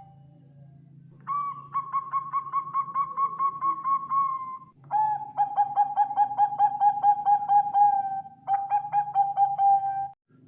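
Zebra dove (Bangkok perkutut) singing: three phrases of rapid, evenly pulsed staccato coos, the first a little higher-pitched than the other two. A low steady hum runs underneath.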